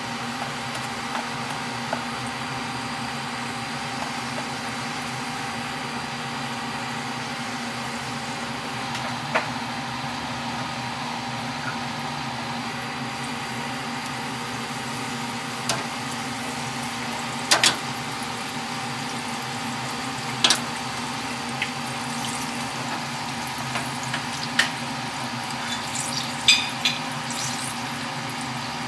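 Battered Oreo cookies sizzling steadily in a deep fryer's hot oil, over a low steady hum. A few sharp taps stand out, the loudest about halfway through and again near the end.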